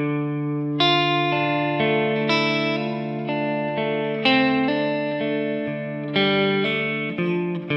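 Electric guitar playing a legato melodic line over a held D minor chord shape, a new note starting every half second to a second while low open-string notes ring on underneath.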